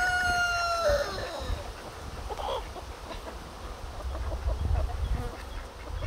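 The end of a rooster's crow: a held note that dips in pitch and cuts off about a second in.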